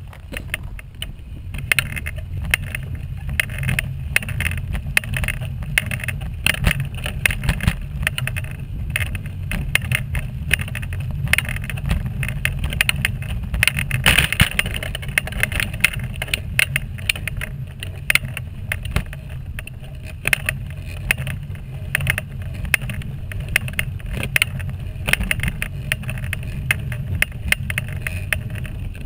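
Wheelchair rolling over a rough, unfinished path: a steady low rumble of the wheels with frequent irregular clicks and rattles.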